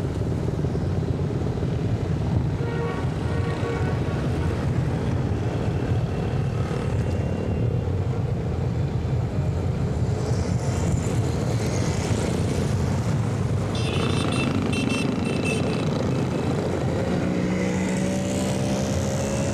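Motorbike street traffic: a steady rumble of small engines riding past. About two-thirds of the way through come a few brief high-pitched beeps, and near the end one engine's pitch rises as it speeds up.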